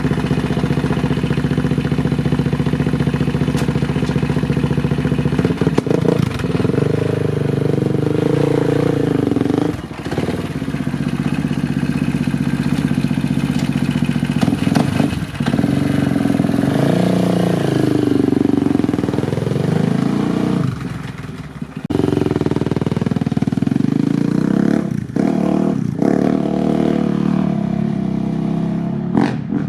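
Polaris Outlaw 525's KTM 525cc single-cylinder four-stroke engine through a Big Gun EVO R slip-on exhaust, running steadily at first, then revving up and down over and over, its pitch climbing and falling. The sound drops off briefly about 10, 15 and 21 seconds in and fades near the end.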